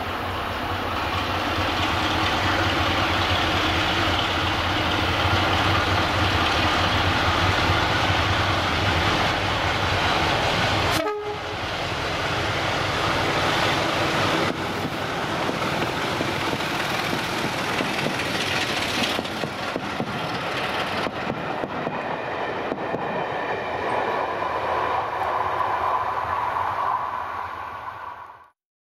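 Class 33 diesel locomotive 33063's Sulzer eight-cylinder engine working hard under power as it approaches and passes at the head of a double-headed train, with a second diesel working behind it. The sound fades out near the end.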